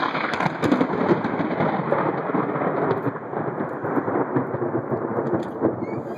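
Thunder from a lightning storm, a loud rolling rumble that starts suddenly and carries on unbroken.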